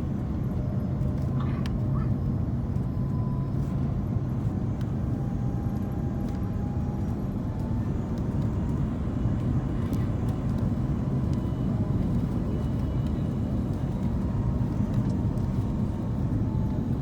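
Steady engine and airflow noise inside an Airbus A330 cabin, a low rumble with a faint whine drifting slightly in pitch and a few small clicks.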